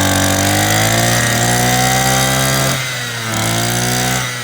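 Small two-stroke engine of a Japanese brush cutter running at high throttle. It eases off briefly about three seconds in, is revved up again, then starts dropping back at the very end.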